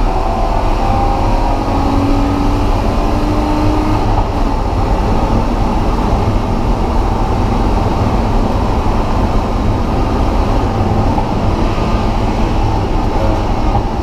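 BMW E36 M3 being driven on track, a steady mix of engine, tyre and wind noise with the engine note climbing slightly in the first couple of seconds.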